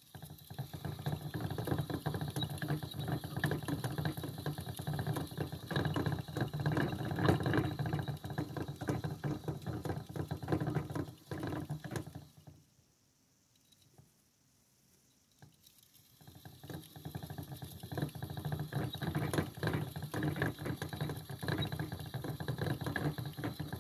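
Chinese dwarf hamster running in a plastic exercise wheel, which rattles quickly as it spins. It stops for about three seconds midway, then starts again.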